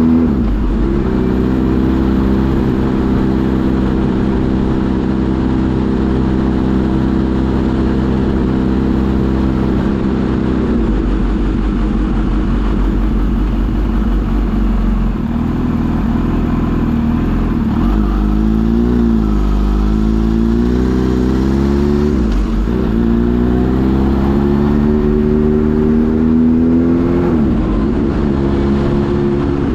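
Kawasaki Z H2 SE's supercharged inline-four engine running under way, its note holding steady for about ten seconds, then wavering and dipping before climbing again as the throttle opens, with a sharp drop in pitch right at the start and again near the end.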